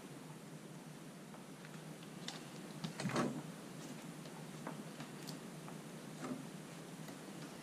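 Faint scattered clicks and light taps from handling a thin wooden strip pressed around a curved wooden chest lid, with one louder knock about three seconds in.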